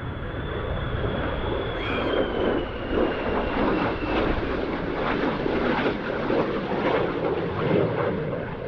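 F-35B Lightning II's single Pratt & Whitney F135 turbofan as the jet makes a low pass overhead. A thin high whine sinks slowly in pitch over the first four seconds under a dense, steady jet noise that turns rough and crackling from about three seconds in.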